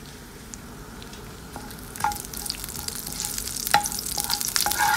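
Crushed dried red chillies and mustard seeds sizzling in hot coconut oil in a frying pan; the sizzle grows louder from about a second and a half in. A metal spoon stirs them, clinking against the pan from about two seconds in.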